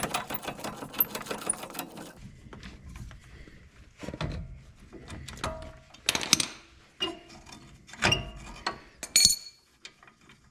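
A power tool rattling rapidly for about two seconds while working on a Jeep's front shock mount. It is followed by several separate metal clanks with a short ring as tools and shock parts are handled.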